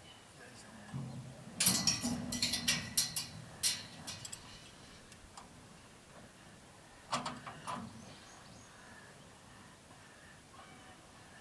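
Steel bucking chute banging and rattling: a rapid cluster of loud metal knocks about two seconds in, then a shorter cluster about seven seconds in.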